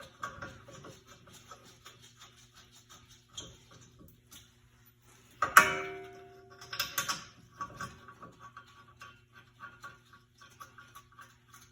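Metal hand tools and brake parts being handled, with light clicks and taps throughout and one loud ringing metal clank about five and a half seconds in.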